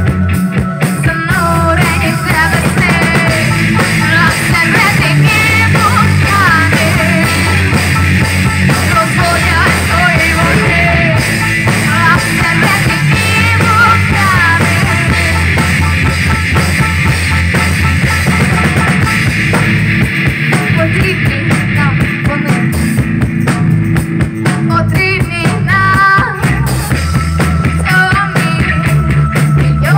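Live rock band playing: a drum kit, electric guitars and keyboards, with a woman singing the lead melody into a microphone.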